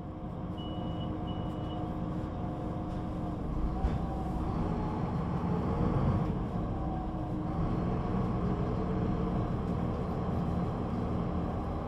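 Solaris Urbino 18 III articulated bus with a vertically mounted 265 kW DAF diesel engine and Voith automatic gearbox, running steadily. About four seconds in, the engine note rises in pitch and gets louder as the bus accelerates. Two short high beeps sound near the start.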